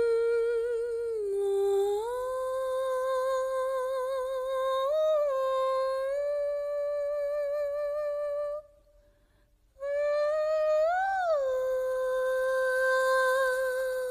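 A single high voice hums a slow wordless melody in long held notes with vibrato. It breaks off for about a second partway through, then swells up briefly before settling on a long note.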